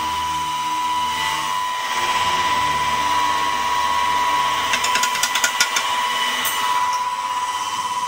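A steady high-pitched mechanical whine over a low hum, with a quick rattle of small taps about five seconds in as a small bottle is shaken over a plastic jug.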